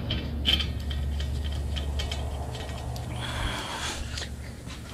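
Light clicks and rattles of small driveshaft bracket bolts and brackets handled in gloved hands, over a steady low hum, with a short hissing rustle a little after three seconds in.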